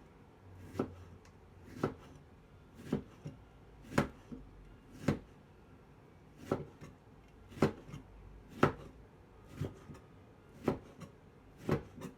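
Knife thinly slicing lemons, one sharp tap of the blade going through about once a second, now and then with a lighter tap just after.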